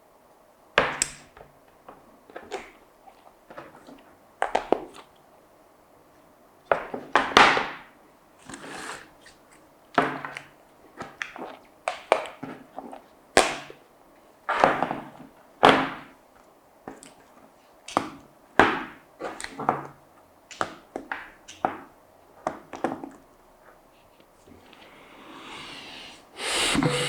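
Phone boxes and packaging being handled: a string of irregular thunks, taps and rustles as boxes are opened, lifted and set down. A hiss swells up near the end.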